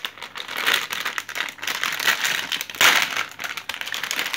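Metallised plastic blind-bag sachet crinkling in the hands as it is handled and opened, with a louder crackle about three seconds in.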